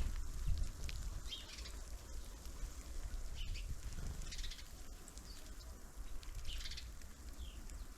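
Small birds calling at a feeder: short, high chirps every second or two, one of them a brief falling note near the end, over a steady low rumble.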